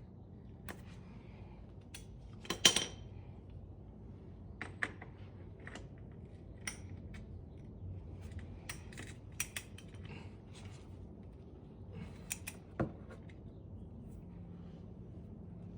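Scattered metallic clicks and clinks of a wrench on the Kubota BX24's transmission drain plug as it is threaded back in and tightened. The loudest clink comes about two and a half seconds in, another near thirteen seconds.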